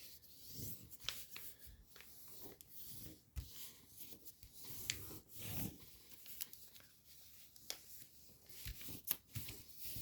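A sheet of origami paper being handled and creased by hand during a squash fold: faint, irregular rustling and crinkling with a few sharp taps and clicks.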